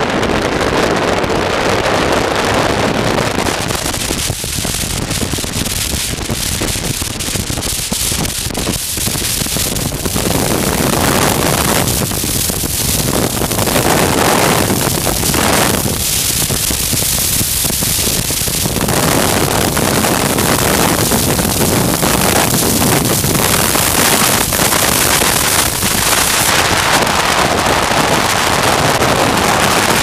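Wind rushing and buffeting over the helmet-mounted microphone of a motorcycle riding at road speed, a rough, gusty noise that grows a little louder in the second half as the bike speeds up.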